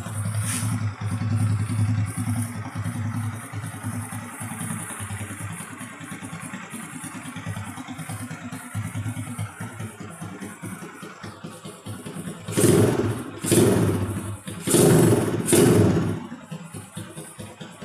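Honda XRM 125 underbone motorcycle's single-cylinder four-stroke engine idling through an open Daeng replica exhaust, then blipped four times in quick succession, in two pairs, about two-thirds of the way in, before settling back to idle.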